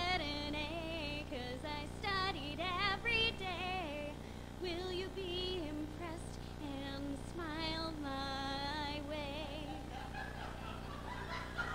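A woman singing in a high voice with heavy, wide vibrato and leaps in pitch, over acoustic guitar. Audience laughter starts near the end.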